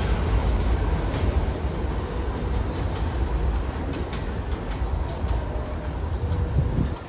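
New York City subway train pulling away along an elevated steel structure: a steady rumble of wheels on rail with faint clicks, slowly fading as it goes, then dropping off suddenly near the end.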